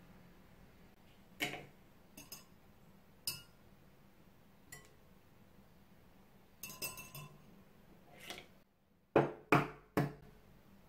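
Wire egg separator and eggs handled against glass bowls: scattered light clinks and taps of metal on glass. Three sharp, louder knocks come in quick succession near the end.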